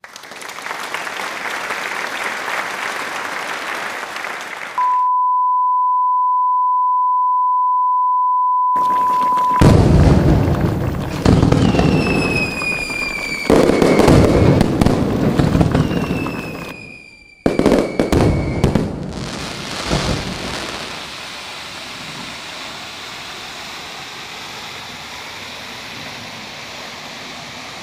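A steady noise for about five seconds, then a single unbroken beep tone for about five seconds. Then a run of loud bangs and crackles with two slowly falling whistles, settling into a steady, quieter noise for the last several seconds.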